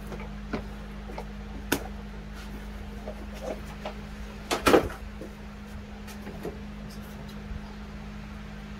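Scattered knocks and clunks of plastic engine-bay parts being handled, with one louder clatter about halfway through, over a steady low background hum.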